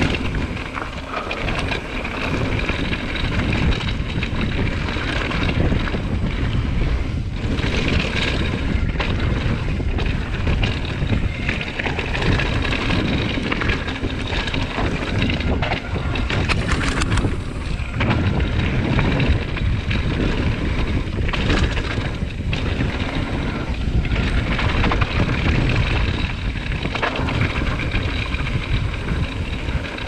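Wind buffeting the microphone and mountain bike tyres rolling over a dirt and gravel trail on a fast descent, with occasional knocks and rattles from the bike over bumps.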